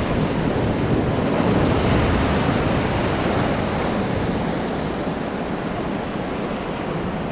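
Sea surf breaking and washing over rocks at the water's edge, a steady rushing hiss, with wind rumbling on the microphone.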